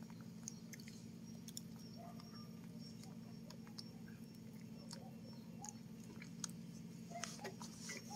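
A baby monkey chewing and biting into a banana: faint, scattered small clicks and smacks over a low steady hum.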